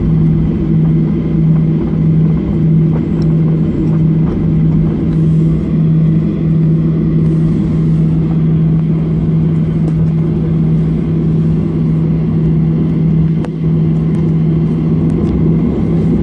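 Jet airliner heard from inside its cabin, engines running on the ground: a steady, loud drone with a low hum over a rumble.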